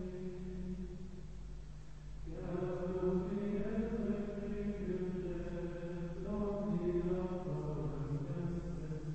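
Men's voices singing Carthusian plainchant in unison: one slow, unaccompanied melodic line, with a brief pause about two seconds in before it resumes.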